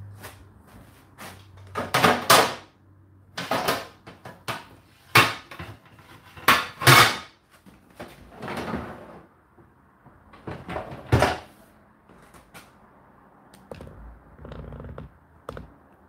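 Plates, pot lids and plastic containers knocking and clattering as a dishwasher's lower rack is unloaded: a string of separate knocks and clinks, the loudest about two, five, seven and eleven seconds in.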